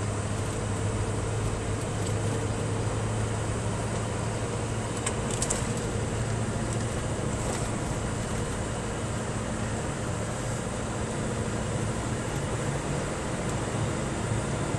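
Scania R620 truck's 16-litre V8 diesel running steadily while driving, heard from inside the cab with road noise under it. A few faint clicks or rattles about five seconds in.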